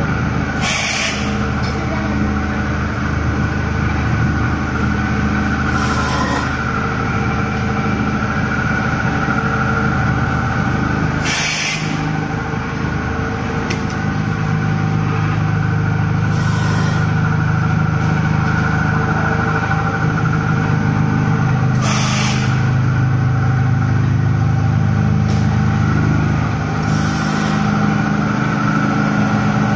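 YZ-4×3000 pulp egg tray forming machine running with its vacuum pump and air compressor: a loud steady machine hum. A short hiss about every five seconds is compressed air blowing the formed trays off the moulds at each cycle.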